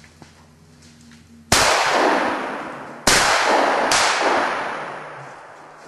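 Three gunshots from hunting guns. The first comes about a second and a half in, then two more close together about three and four seconds in, the last weaker. Each crack is followed by a long echoing tail that dies away slowly.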